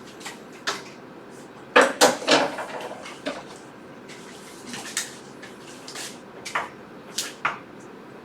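A series of sharp taps and clicks from a writing tool on a writing surface while a graph is drawn, with a loud cluster of taps about two seconds in.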